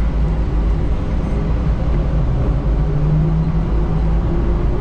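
Cabin noise of a DFW Skylink automated people mover (Bombardier Innovia APM 200) running along its concrete guideway: a steady low rumble from its rubber tyres and drive, with a humming tone that swells about three seconds in.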